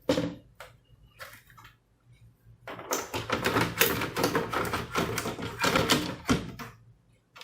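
Plastic back casing of an all-in-one PC being handled and fitted back on: a few single clicks and knocks, then a few seconds of dense plastic clattering and scraping as the cover is worked into place.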